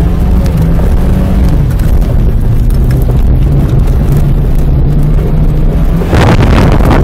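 Car engine running steadily under a constant noisy drone, with a louder burst of noise about six seconds in.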